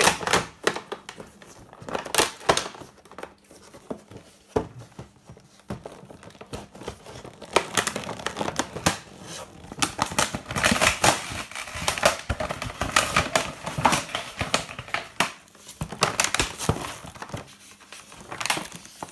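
A toy's stiff clear plastic blister tray and cardboard packaging being handled and torn open by hand. It gives irregular crinkling and crackling with some tearing, thickest in the middle stretch.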